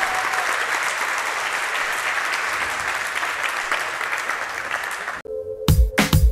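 Audience applauding steadily. About five seconds in it cuts off abruptly and electronic music with heavy beats starts.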